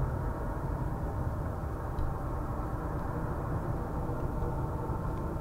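A steady low rumble with faint, even humming tones above it.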